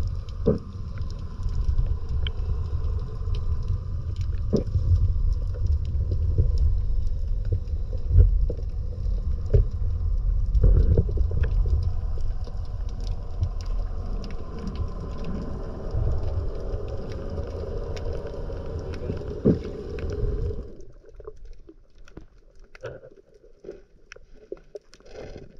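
A low rumbling noise with scattered clicks and knocks, which cuts off abruptly about 21 seconds in, leaving only faint clicks.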